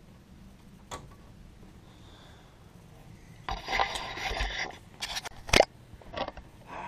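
Handling noise on the camera: a light click, then about a second of rubbing and scraping against it. A sharp knock follows, the loudest sound, with a few lighter knocks after it as the camera is set down.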